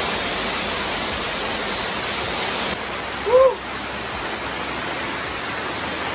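Rain falling on plastic shrink-wrap sheeting, heard from inside the shelter as a steady hiss. The sound changes a little under three seconds in, and a brief rising-and-falling voice-like sound comes just after.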